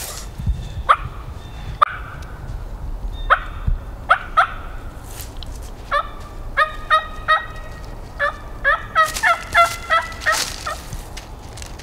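Wild turkey calling: a few sharp single notes, then a fast, rattling run of notes in the second half, a gobbler's gobble.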